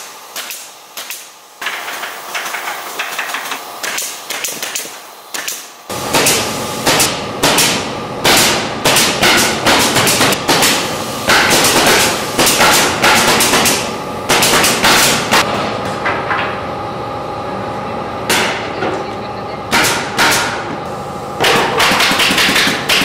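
Pneumatic nail gun firing into a wooden sofa frame: sharp shots in quick runs, several a second. They are lighter for the first few seconds and loud from about six seconds in, over a steady hum.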